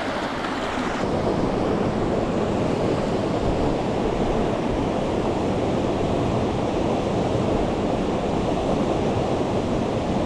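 Mountain stream rushing steadily, a continuous water roar; a brighter hiss in it drops away about a second in.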